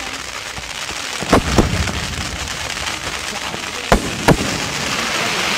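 Fireworks display: four sharp bangs in two quick pairs, about a second and a half in and again about four seconds in, over a steady hiss.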